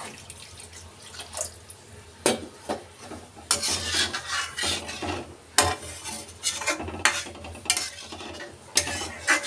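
A spoon stirring thin, watery gravy in a steel kadai: swishing and scraping, with a few sharp clinks of the spoon against the pan.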